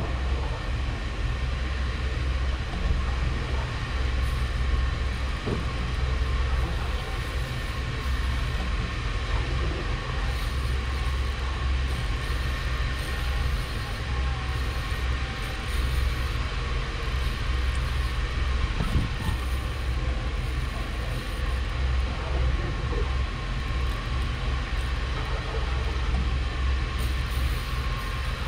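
Boat engine running, a steady low rumble with a faint constant whine above it.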